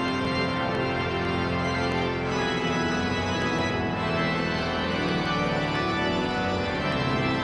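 Pipe organ playing full, sustained chords.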